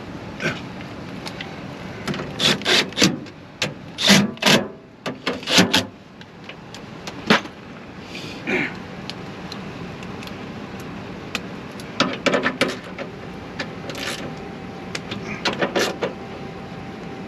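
Irregular clicks, knocks and scraping from hand work on the window regulator inside a car door, in two busy spells over a steady background noise.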